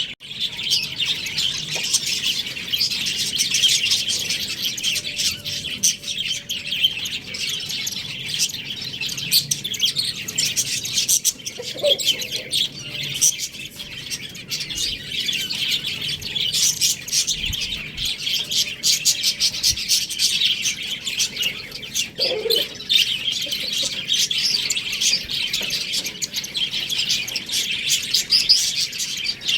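Many small pet birds chirping and chattering continuously, a dense, unbroken flock sound.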